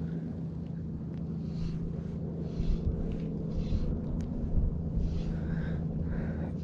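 Fly line being stripped in by hand in short, soft pulls, over a steady low hum from an unseen motor.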